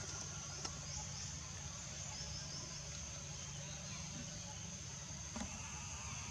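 Steady high-pitched drone of insects, with a few faint short chirps about two seconds in over a low steady rumble of background noise.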